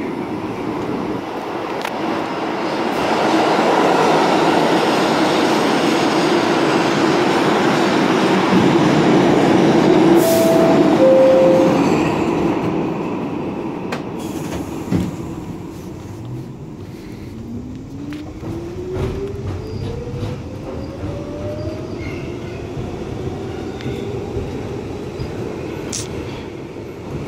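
R62A subway car running in the tunnel: a loud rumble and clatter of wheels on rail that swells, then eases after about twelve seconds. Two short tones, the second lower, sound about ten seconds in. From about sixteen seconds a whine rises steadily in pitch as the traction motors pick up speed.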